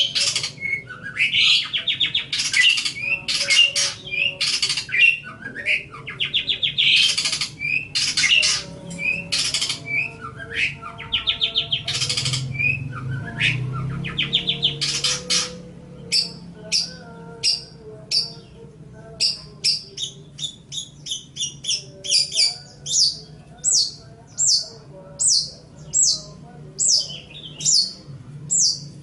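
Long-tailed shrike (cendet) singing: a fast, harsh chattering song of rapid note runs, giving way about halfway through to a series of short, sharp high notes repeated about twice a second.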